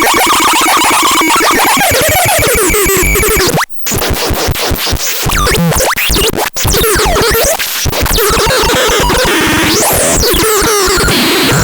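Synthesizer making chaotic, noisy electronic sounds: sweeping pitch glides up and down over fast stuttering pulses. The sound cuts out briefly about four seconds in.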